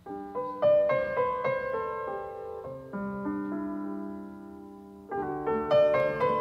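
Background piano music: a gentle melody of single notes, settling into a held chord about three seconds in, then the melody picks up again about five seconds in.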